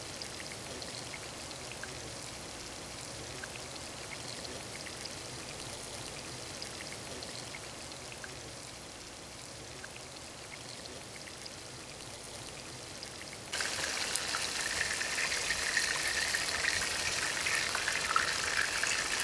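A steady soft hiss, then about two-thirds in a sudden, louder sizzling and crackling: barracuda steaks frying in hot oil in a cast-iron pan.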